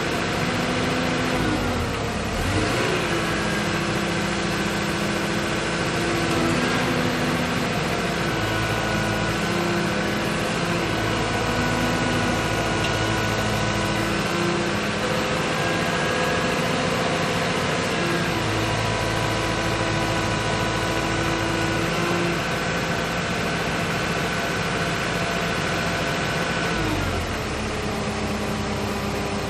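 Caterpillar excavator's diesel engine running steadily, its tones stepping up about two seconds in and gliding back down near the end.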